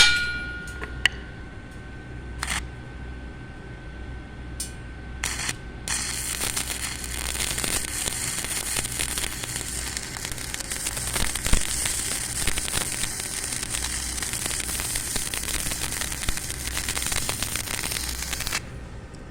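Stick (arc) welding with a welding rod: a steady crackling hiss starts about six seconds in, runs for about twelve seconds and cuts off suddenly. Before it come a few light metal knocks and a fading metallic ring.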